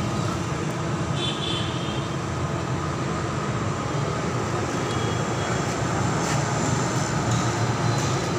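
Steady low rumble of road traffic, with a faint steady hum over it.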